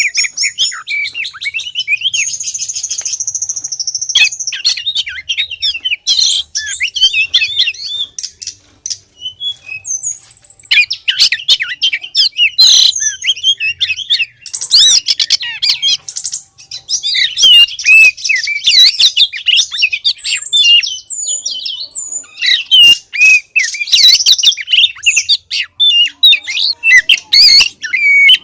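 Female Oriental magpie-robin singing: fast runs of varied whistles, trills and sharp chattering notes, broken by a few short pauses. This is the female's call to attract a male.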